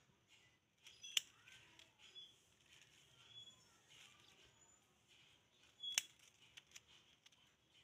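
Pair of scissors snipping lemon tree shoots: two sharp snips, one about a second in and one about six seconds in, with a few faint blade clicks after the second.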